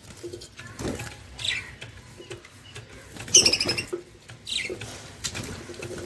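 A flock of caged budgerigars chirping and chattering, with a few sharp, falling chirps over a low, busy warble. The loudest chirp comes about three and a half seconds in.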